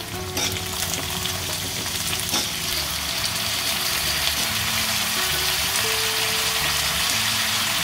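Sliced raw potatoes sizzling in hot oil in a kadhai, the sizzle building gradually louder.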